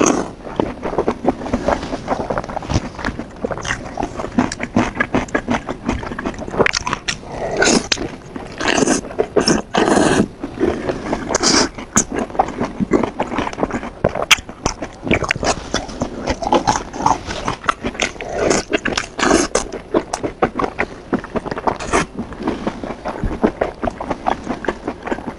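Close-miked eating sounds: biting into and chewing braised lamb intestine, a continuous stream of wet mouth clicks and smacks.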